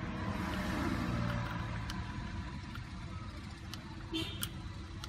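Car engine idling, a steady low rumble heard from inside the cabin, with a few light clicks as the dash camera's buttons are pressed.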